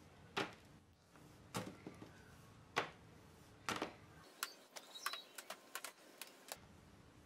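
Hand carving tool scraping out firm, not-yet-dry clay as a slab is hollowed from behind: faint short scrapes about a second apart, then a quicker run of lighter strokes in the middle.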